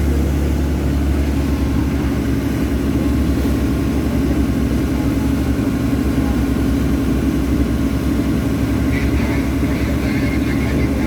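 Tour boat's engine running steadily, a low, even hum with no change in speed.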